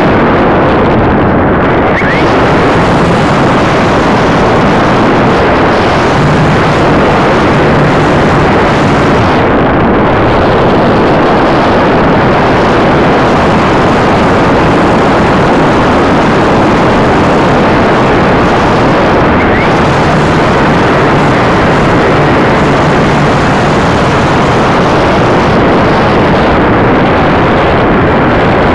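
Steady, loud rushing of air over the onboard camera's microphone on a Demon 2000 RC glider in flight, with a faint low hum coming and going.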